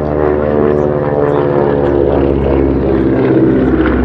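Radial-engined propeller aircraft flying past, its engine note sliding slightly lower in pitch as it goes by.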